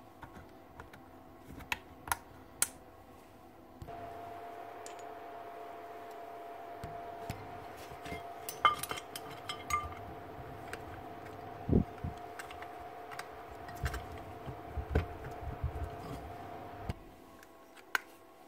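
Metal parts of a power planer clinking and knocking as they are handled: the aluminium gear housing, the armature, circlip pliers and a bearing puller. There are light clicks and several sharp metallic clanks. A steady hum starts about four seconds in and stops near the end.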